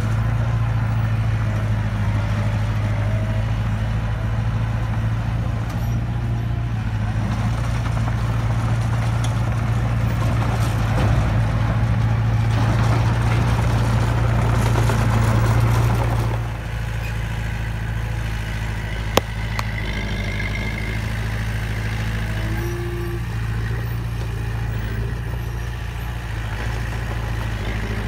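Small crawler bulldozer's diesel engine running steadily with a low, even hum as the dozer pushes soil. Rougher working noise builds over it until about sixteen seconds in, where it drops off and the sound eases a little. A single sharp click comes a few seconds later.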